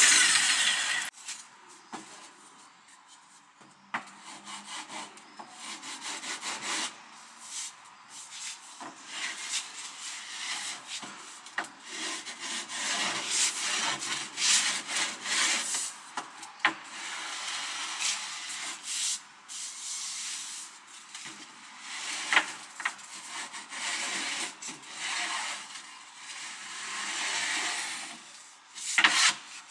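A Bosch PST 800 PEL jigsaw stops cutting about a second in. After that, the freshly cut edge of a laminated chipboard panel is rubbed by hand with a small sanding block, in irregular scraping strokes with occasional knocks.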